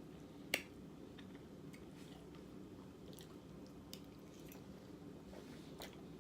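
A person chewing food with the mouth close to the microphone: faint, scattered wet mouth clicks, one sharper click about half a second in.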